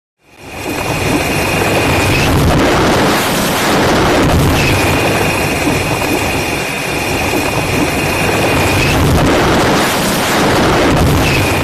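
Synthesized fictional 'space sound' made for a moon: a loud, dense wash of noise over a low rumble, slowly sweeping in tone. A steady high tone sits on top and drops out twice, about two seconds in and again about nine seconds in. The sound fades in at the start and cuts off at the end.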